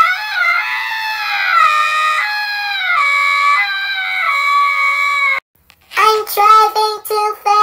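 A high-pitched voice screaming "AAAGGGGGH" in one long, wavering scream of about five seconds. After a brief break it turns into choppy, stop-start wailing cries.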